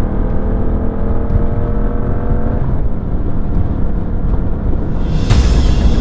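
Yamaha motorcycle engine running under way, its pitch rising slightly as it pulls for about two and a half seconds before the throttle eases off, over a heavy low rumble. A single sharp crack about five seconds in.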